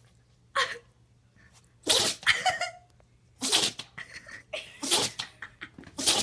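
A sneezing fit: about five sharp sneezes in quick succession, roughly one a second.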